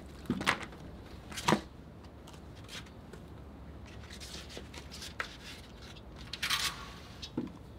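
Knocks and clatter of watering gear, a plastic spray bottle among it, being set down and handled on a balcony ledge, with some rustling. A sharp click comes about five seconds in, a short hiss about six and a half seconds in, and a last small knock near the end.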